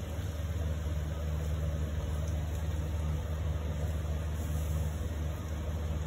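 Steady low mechanical hum of a running motor, even throughout.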